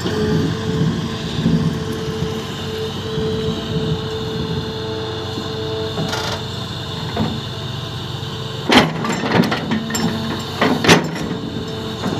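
Tata Hitachi Zaxis 370 excavator's diesel engine and hydraulics working under load as the bucket cuts into hard, dry soil. A few sharp scraping knocks from the bucket come about three-quarters of the way through and again near the end.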